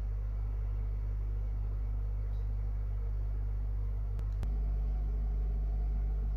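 Steady low electrical hum and rumble from a vinyl record playback before the music starts, with two sharp clicks about four seconds in, after which the hum grows slightly louder.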